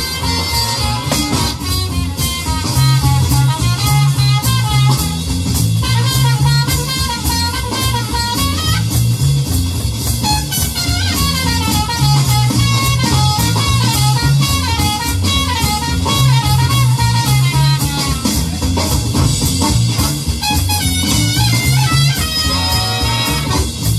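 Up-tempo jazz music with a drummer playing along on a Roland electronic drum kit: busy drum strokes on the tom pads and cymbals over a repeating bass line.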